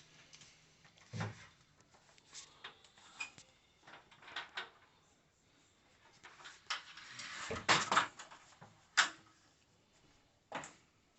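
Scattered handling noises at close range: a low thump, several light clicks and knocks, and a short stretch of scraping or rustling in the middle, as objects and tools are handled while fitting a smoke detector.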